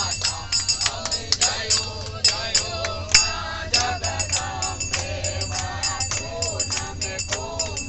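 A group of people singing a Hindu devotional bhajan together, kept in time by hand clapping and a fast jingling percussion beat. A steady low rumble of the moving train runs underneath.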